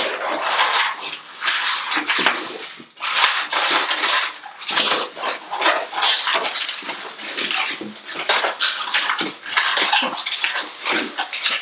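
Orange 260 latex modelling balloon squeaking and rubbing under the hands as it is twisted into small flower-petal bubbles: many short, irregular squeaks in quick succession.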